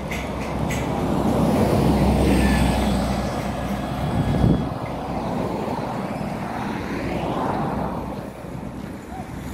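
A large bus drives past close by. Its engine and tyre noise build to a loud peak about four and a half seconds in, then fade. A second, smaller vehicle passes about three seconds later.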